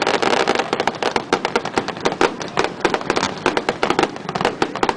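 Fireworks display going off in quick succession, with many overlapping bangs and crackles every second.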